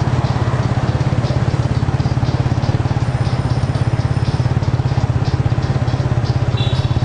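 A vehicle engine running steadily at low speed close by, with a fast, even throb.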